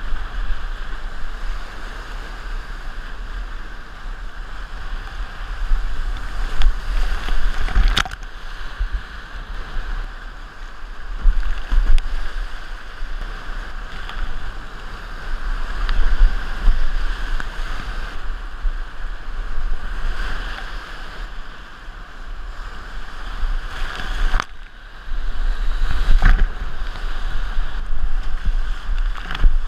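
Continuous whitewater rapids rushing and surging around a kayak heard up close, with paddle strokes splashing and wind rumbling on the microphone. A few sharp splashes or knocks stand out, about eight seconds in and again near the end.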